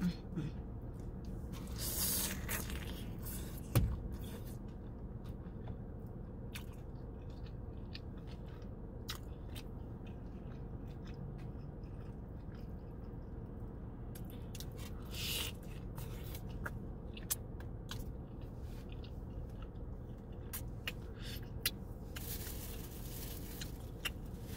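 A person biting and chewing consommé-dipped birria tacos with fried tortillas: wet chewing with scattered crunches and clicks, over a steady low hum inside a car's cabin.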